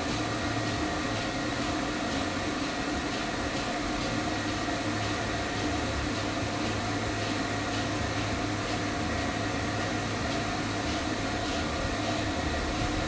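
Pet-grooming stand dryer running steadily while drying a poodle's coat: a constant rush of air over a steady motor hum.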